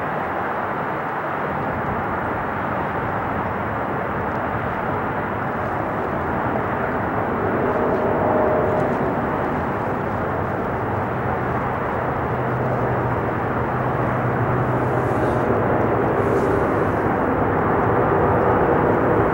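Boeing 777's twin turbofan engines on final approach with gear down: a steady jet rumble, with a few faint steady tones in it, that slowly grows louder as the airliner closes in overhead.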